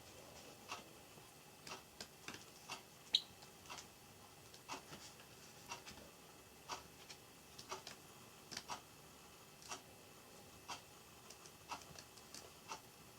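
Java sparrow pecking and biting at pea sprouts: quiet, irregular beak clicks, about one or two a second, with one short high note about three seconds in.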